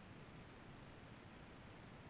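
Near silence: faint steady room hiss.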